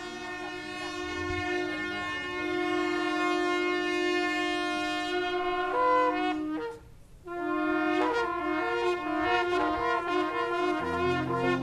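A brass instrument playing solo: two long held notes, a short break about seven seconds in, then a melodic phrase of shorter notes. Low bass notes of accompanying music join near the end.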